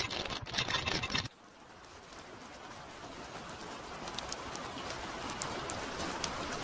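A loud burst of hiss-like noise cuts off sharply about a second in. A softer, even hiss with scattered light ticks then slowly fades up, an ambience bed under a cut to night street traffic.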